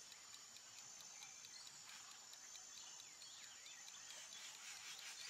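Near silence: a faint, steady high-pitched hiss with faint quick ticks.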